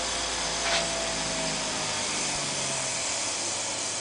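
Grizzly knife-sharpening machine running with its wheel spinning: a steady whir with a low hum, and a few faint tones that sink a little and fade out two to three seconds in.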